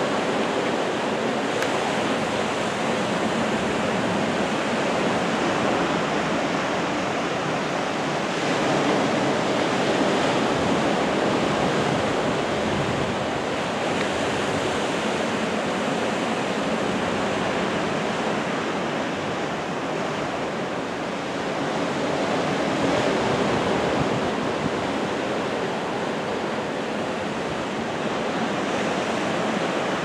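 Steady rushing noise of choppy, wind-blown sea water and wind, even and unbroken throughout.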